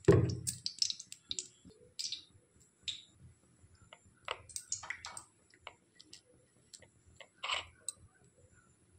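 Fingers working thick gram-flour (besan) pakora batter in a steel bowl: scattered soft squelches and light clicks. A single thump comes at the start.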